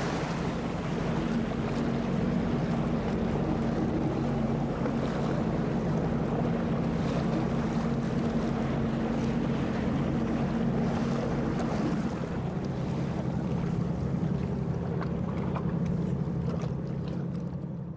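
Motorboat engine idling steadily, with water splashing against the hull and wind buffeting the microphone; the sound fades out near the end.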